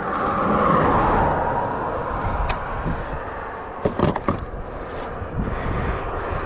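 A vehicle passing, its tyre and engine noise swelling in the first second or two and then fading, with a few sharp clicks and knocks about four seconds in.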